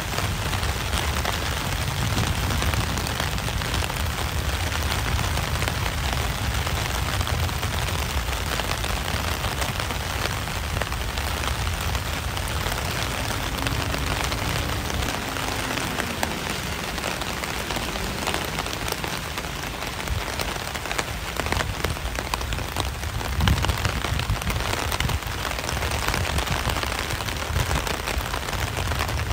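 Steady rain-like patter, dense with tiny drop crackles, over a constant low rumble, with a few slightly louder spikes near the end.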